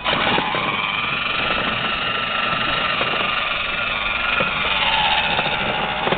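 Battery-powered ride-on toy car driving: a steady whine from its electric drive motors and gearboxes mixed with the rumble of its hard plastic wheels rolling over asphalt and concrete.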